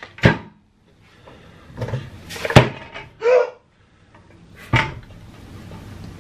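Metal griddle plate being handled: about three sharp knocks and clatters, with some rustling between them.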